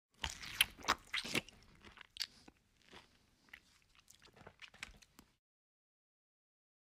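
Close-miked chewing of a mouthful of hard-boiled egg: sharp, wet crunches and smacks in the first two seconds, then softer chewing that cuts off suddenly about five seconds in.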